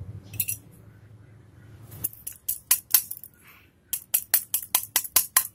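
Sharp metallic taps on a TS125 carburetor body as a jet is knocked into its seat. A few spaced taps come about two to three seconds in, then a quick run of about nine taps near the end.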